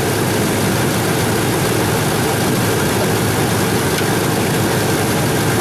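2001 GMC Sierra engine idling steadily, heard close up under the open hood while it warms up after a coolant refill.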